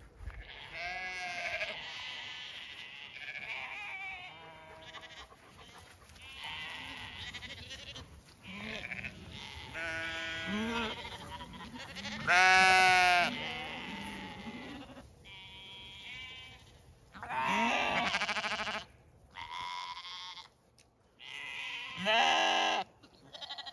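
A flock of Zwartbles lambs bleating again and again, the calls often overlapping, the loudest a long bleat about halfway through. The lambs are calling in expectation of food.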